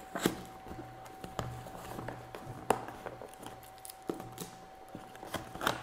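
Fingers picking and tearing at the sealed cardboard box of a camera: scattered small scratches and clicks, with a few sharper ticks.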